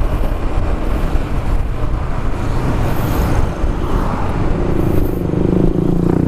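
Road and traffic noise from a Yamaha XMAX 300 scooter riding through town traffic. A steadier pitched engine drone comes in about four and a half seconds in.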